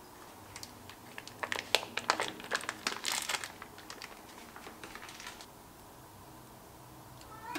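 Crinkling and rustling of a cream cheese wrapper as the block is pushed out of it, with a quick run of light crackles and clicks, loudest about three seconds in.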